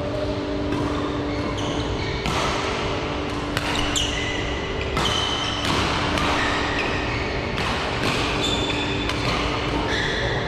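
Badminton rally in a sports hall: rackets striking the shuttlecock in sharp cracks every second or so, with short high squeaks of court shoes on the floor, over a steady low hum and echoing hall noise.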